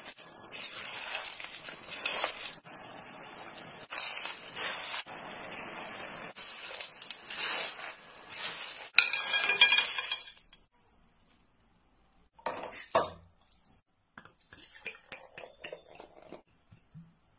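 Sea snails in their shells being stir-fried and tossed in a pan with a spatula, the shells clattering and clinking against the pan and each other, loudest about nine seconds in. After a short pause come a single knock and a few light clicks.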